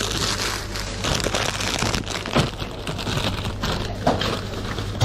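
Plastic chip bag crinkling as tortilla chips are shaken out onto paper, the chips clattering down in several small sharp bursts.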